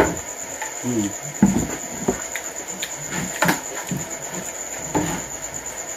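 A person eating instant noodles: slurping and chewing, with a metal spoon clinking against the plate about four times. A steady high insect trill runs underneath.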